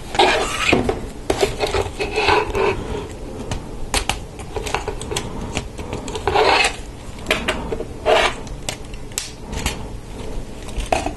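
Plastic LEGO Technic parts clicking and rubbing in the hands as pins, axles and beams are fitted together, with sharp clicks throughout and a few louder scraping bursts, the loudest right at the start.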